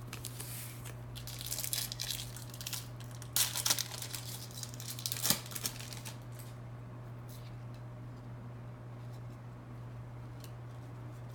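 A 1999 Bowman Chrome football card pack being torn open and its foil wrapper crinkled, in uneven bursts over the first six seconds, loudest about three and a half and five seconds in; after that only faint ticks of the cards being handled. A steady low hum runs underneath.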